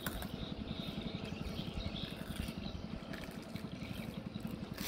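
A small engine running steadily, a low drone with a fast, even pulse.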